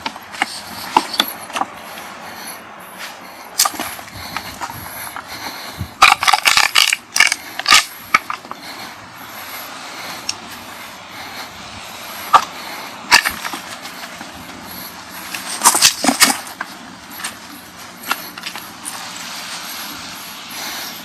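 Steady wash of beach wind and waves, broken by scattered sharp clicks and two loud bursts of clattering knocks, about six and sixteen seconds in.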